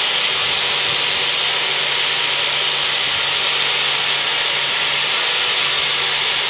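Angle grinder with an 80-grit flap disc running steadily while grinding the cutting edge of a steel lawnmower blade, sharpening it.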